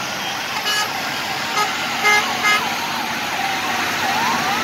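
Four short horn toots in the first two and a half seconds over steady traffic and engine noise, while the sirens of the heavy-haul convoy's escort vehicles wail up and down and switch to a fast yelp near the end.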